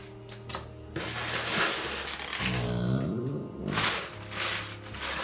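Plastic packing material rustling and crinkling as it is pulled out of a cardboard box, in a long stretch about a second in and a shorter one near the end.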